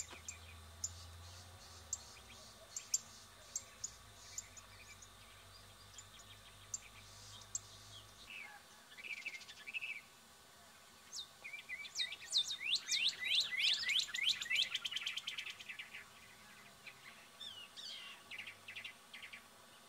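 Birds calling with sharp, high, down-slurred chips, scattered at first, then a dense run of rapid chips and trills lasting about four seconds in the middle, then scattered again.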